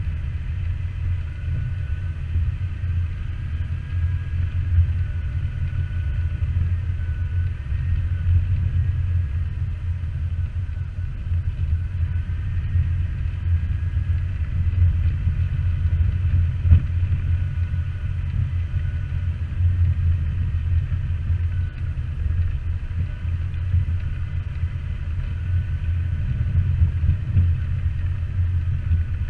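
Jeep driving on an off-road trail: a steady, loud low rumble of engine and drivetrain, with a faint higher whine wavering up and down.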